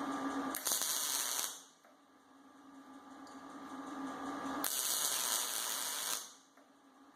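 Snap-on MIG 160i welder laying down tack welds: short bursts of arc hiss and crackle, two bright ones about four seconds apart.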